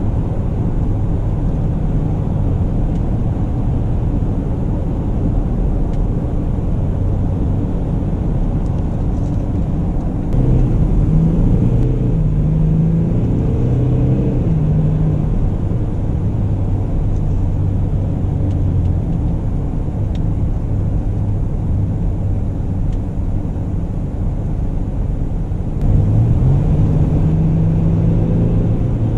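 Mercedes-Benz GLE Coupe driving, with a steady engine and road rumble. About ten seconds in the engine pulls harder and its note climbs in steps as it works through the gears. It picks up and rises again near the end.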